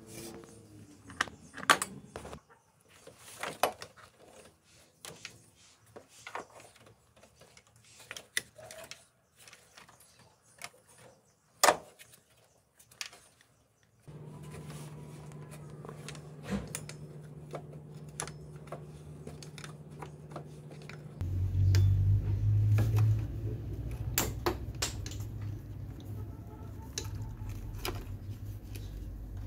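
Scattered metallic clicks and clinks of a wrench and parts being handled on a car's power steering pump, with quiet gaps between them. About halfway a steady low hum sets in, and it grows louder about two-thirds of the way through while the clicks go on.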